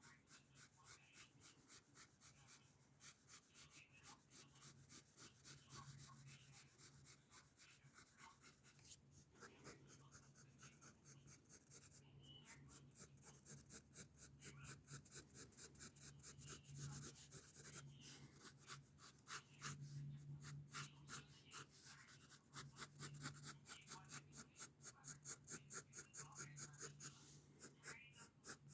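Pencil scratching on paper in rapid, repeated shading strokes, several a second, growing louder after the first few seconds, over a faint steady low hum.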